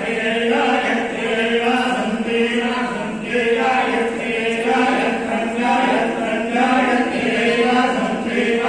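Many voices chanting a Hindu devotional hymn together in unison, on steady, held pitches without a break.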